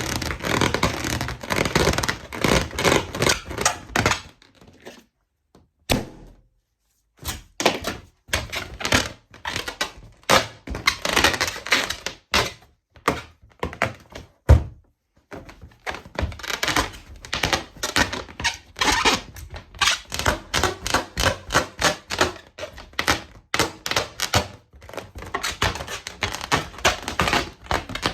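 Balloons popping in rapid runs of sharp pops, several a second, with two short pauses and one especially loud pop about halfway through.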